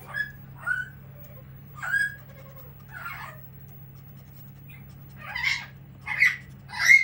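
Pet parrot squawking in short, separate calls, a few scattered at first, then coming faster and louder over the last two seconds.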